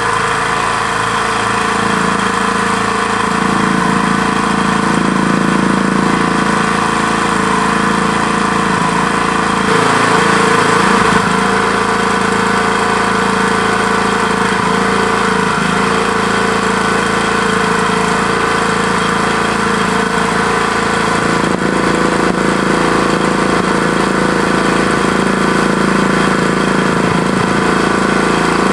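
Small petrol engine of an IW Mauki H6.5 mole exterminator running steadily at idle, its exhaust being pushed through a hose into the mole tunnels.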